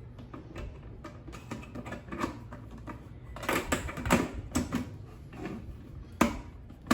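Plastic Shoemate shoe box cover being pressed onto the box frame: a series of light plastic clicks and knocks, busiest about halfway through, with one sharp snap near the end as the cover locks in place.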